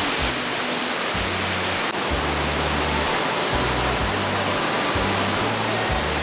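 Waterfall rushing steadily, a constant loud hiss of falling water, with background music's low bass notes moving underneath.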